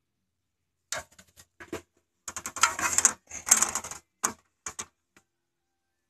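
A rapid run of clattering clicks and rustles, starting about a second in, densest in the middle and stopping short of the end.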